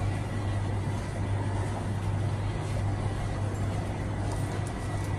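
Steady low hum under a constant hiss of bubbling water: the pumps and aerators of a live seafood tank running.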